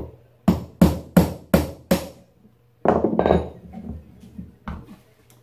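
Claw hammer striking a chisel held against a wooden chair seat, five quick blows, driving the seat off the legs to take the child's rocker apart. About three seconds in comes a longer wooden clatter and scrape as the seat comes free and the tools are set down on the bench.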